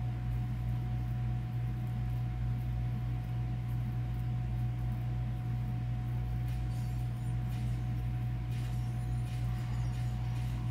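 Steady low hum with a thin, constant higher tone over it and no voice: the live stream's sound is muted, so only the hum comes through.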